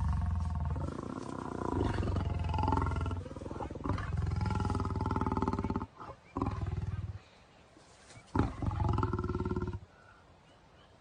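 Deep, drawn-out animal calls, about five long ones with short breaks between them, the last ending about ten seconds in.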